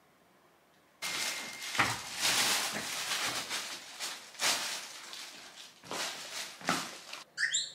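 Rustling and handling noise as a bag is lifted and slung onto a shoulder: loud, irregular bursts that start about a second in, with a few quick squeaks near the end.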